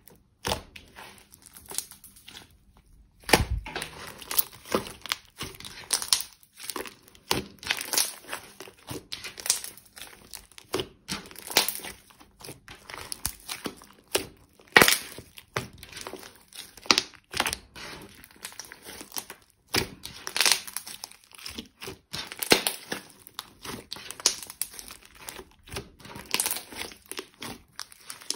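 Hands kneading, squeezing and folding a large lump of thick slime, giving an irregular run of sharp clicks and pops as it is pressed.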